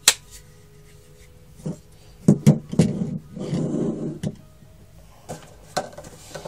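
Benchmade Griptilian folding knives handled by hand: a sharp click just at the start, then a cluster of knocks and rustling about two seconds in, and a couple of light knocks as the knives are laid on a table.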